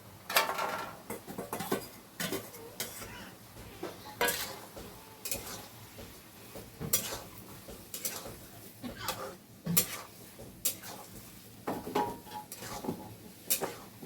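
A cooking utensil scraping and knocking against a kadai as meat is stirred and sautéed, with irregular scrapes and clinks about once a second.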